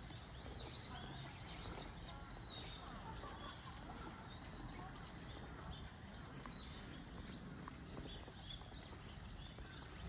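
Birds calling with repeated high chirps, a quick run of them in the middle, over a steady low background rumble.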